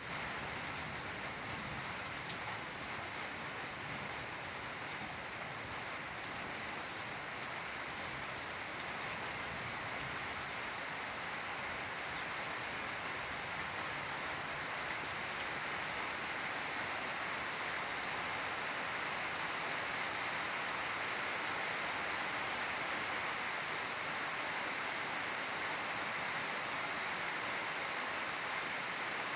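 Steady rain falling, with a constant hiss and faint scattered drop ticks.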